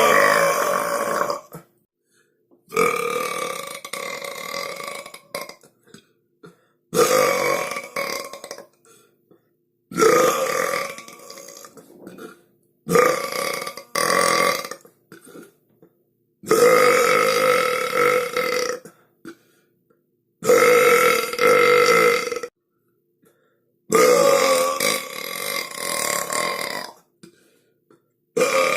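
A run of loud, drawn-out human belches, about ten of them one after another, each lasting one to three seconds with a brief silence between.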